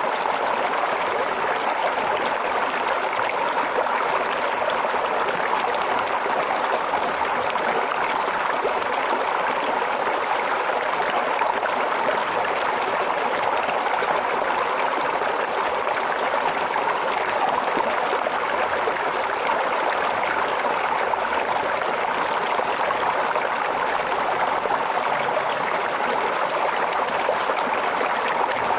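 Shallow stream water babbling and trickling over stones, a steady, even rush with no let-up.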